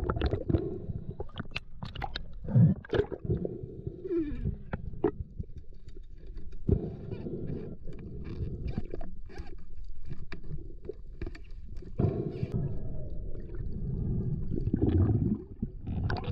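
Underwater sound of a speargun, its line reel and shooting line being handled by gloved hands: scattered sharp clicks and knocks over a steady low water rumble, with a brief falling tone about four seconds in.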